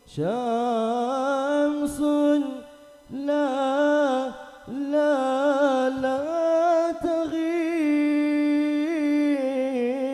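A single voice singing an Arabic sholawat in long, drawn-out melismatic phrases, each note held and ornamented, with short breaths between phrases.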